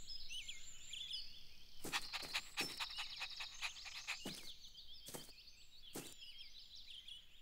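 Faint birdsong ambience of a cartoon garden: high, quick chirps and twitters throughout, with a scatter of soft taps from about two seconds in.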